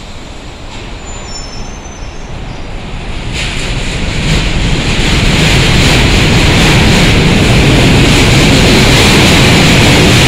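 R68A New York City subway train pulling out of the station. Its running noise grows steadily louder from about three seconds in as it picks up speed, then holds as a loud, steady rush of wheel and rail noise while the cars pass close by.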